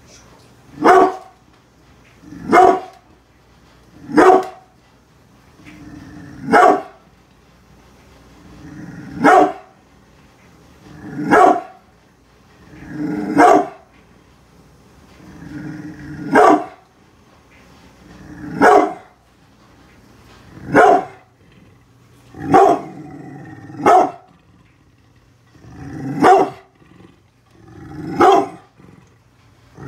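Brindle pit bull giving territorial warning barks at people outside: single deep barks about every two seconds, many of them preceded by a low growl that builds into the bark.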